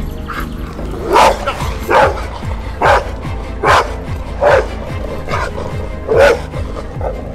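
A Rottweiler barking repeatedly, about six sharp barks under a second apart, while she pulls on the leash. Background music runs underneath.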